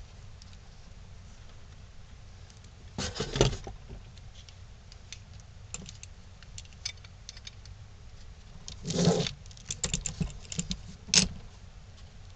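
Steel bar clamps being set and tightened on glued wooden blocks: scattered metal clicks and rattles, with louder clatters about three seconds in, around nine seconds and again near eleven seconds.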